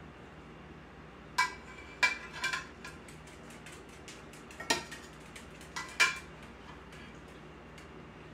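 Metal serving tongs clinking against a glass baking dish while lifting out roasted asparagus: about half a dozen sharp clinks, each with a brief ring, spread through the stretch.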